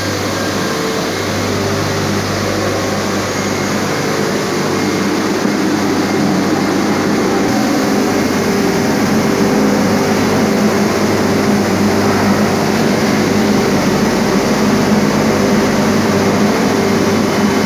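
Marble shot blasting machine running: a steady electric-motor hum under a dense, even noise of the blasting, growing slightly louder over time.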